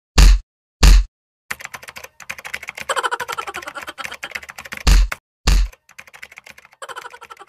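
Computer keyboard typing sound effect: rapid key clicks, with four heavy thuds among them, two near the start and two just after the middle.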